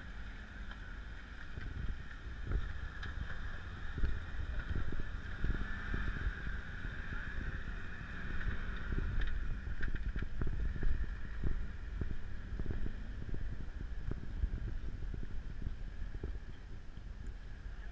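Wind buffeting the microphone: a steady low rumble broken by irregular low thumps, with a thin hiss above.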